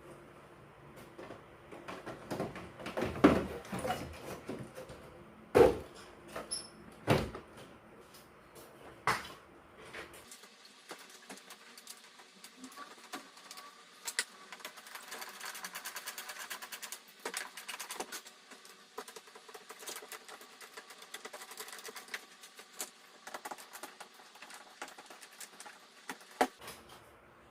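Handling sounds of parts being worked on: several sharp knocks in the first few seconds, then lighter clicking and rattling with a faint hiss, and one more knock near the end.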